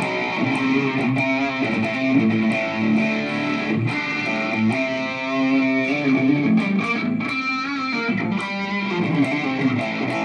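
Electric guitar played through a Zoom G5n multi-effects processor on a distorted, overdriven tone: a run of picked single notes, some held with vibrato.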